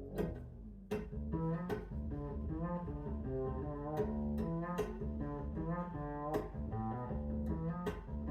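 Music with stringed instruments over a deep bass line, with sharp plucked note attacks.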